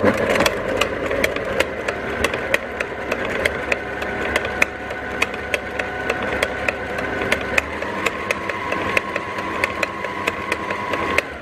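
Electric stand mixer switched on and running a wire balloon whisk through cream in a glass bowl: a steady motor whine with a regular ticking of the whisk against the bowl. The whine drops in pitch about eight seconds in as the speed changes.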